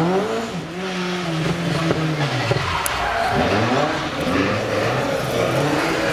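Classic rally car's engine pulling hard away from a hairpin: the revs climb, drop at a gear change about three seconds in, then climb again.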